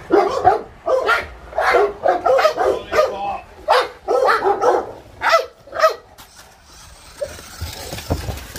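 Dogue de Bordeaux mastiffs barking excitedly at a toy car, a rapid string of loud barks and yips that dies down after about six seconds.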